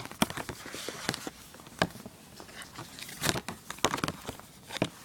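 Packaging being handled by hand: scattered sharp clicks and short crinkles as a charger is taken out of its box compartment.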